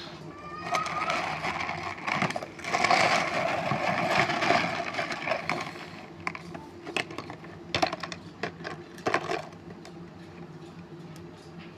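Small stones clicking and clattering against each other. A dense rattle runs for about three seconds in the middle, then separate clicks follow until near the end.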